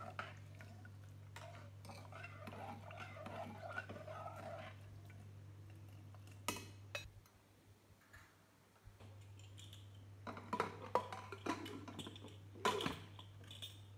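A metal ladle stirring watery rice and lentils in an aluminium pressure cooker, scraping and sloshing, then two sharp taps of the ladle on the pot about six and a half seconds in. Near the end, metallic clattering as the pressure cooker lid is fitted on, all over a steady low hum.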